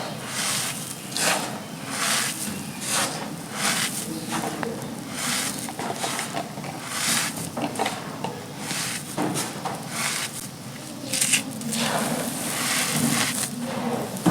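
Gritty black sand-cement chunks, coated in wet paste, being crumbled in a run of short crunchy, gritty bursts a little more than once a second.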